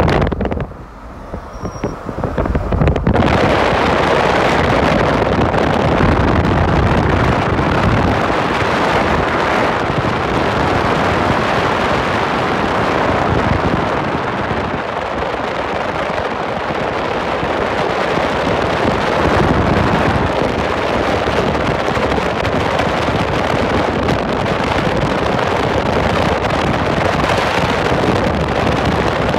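Wind rushing over the microphone together with the road noise of a moving car, a loud, steady rush that swells up about three seconds in.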